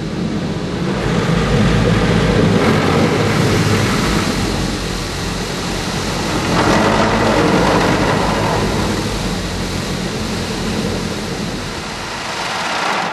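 Car wash dryer blowers rushing air over the car, heard from inside the closed cabin, a loud, steady roar of air with a low motor hum that swells and eases a couple of times.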